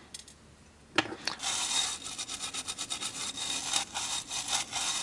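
Toothbrush bristles scrubbing a circuit board in rapid rough strokes, cleaning off leaked electrolytic capacitor residue. A sharp click about a second in, just before the scrubbing starts.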